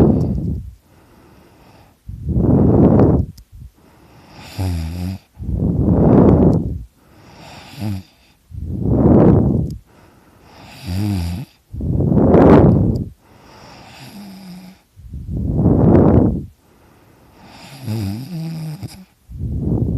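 A sleeping person snoring loudly: a long, loud snore about every three and a half seconds, with a softer, pitched breath sound between each pair of snores.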